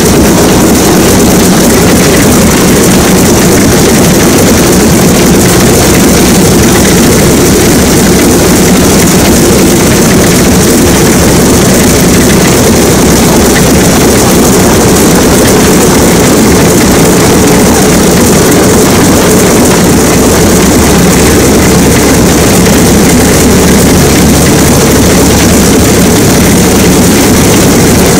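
Shvetsov ASh-62IR nine-cylinder radial engine of an Antonov An-2 running loud and steady.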